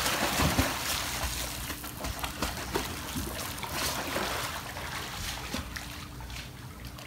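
Pool water splashing as a bulldog paddles and a man swims alongside it. The splashing is busiest over the first few seconds and thins out toward the end.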